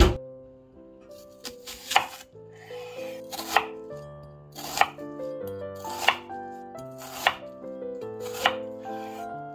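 A large chef's knife slicing through an onion half and tapping a bamboo cutting board, six crisp cuts about a second and a quarter apart. An oven door shuts with a sharp thump at the very start, the loudest sound. Soft background music runs under it.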